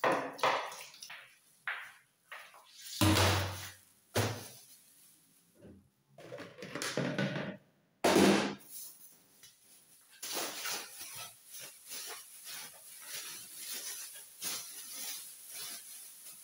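Kitchen sink sounds: tap water splashing briefly and knocks of dishes and a cup being handled, with a loud clunk about eight seconds in. From about ten seconds a thin plastic bag crinkles and rustles as it is handled.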